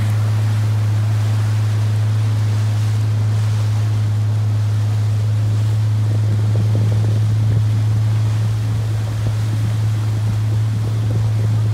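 A motorboat's engine running at a steady speed, heard from on board as a constant low hum, over the wash of water around the hull.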